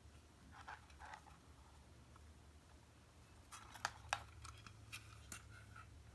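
Faint handling sounds: two soft rustles, then from about three and a half seconds in a scatter of small sharp clicks and taps, the two loudest close together, over a low steady hum.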